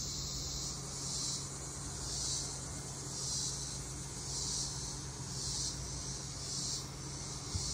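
Insects buzzing in a high, even drone that swells and fades about once a second.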